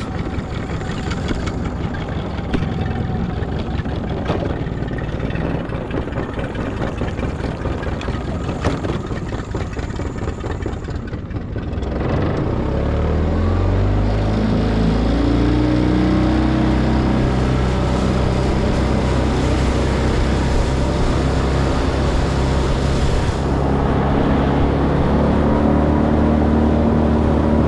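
Motor running under way with wind rushing over the microphone. About twelve seconds in, the sound changes to an engine that rises in pitch and then settles into a steady drone.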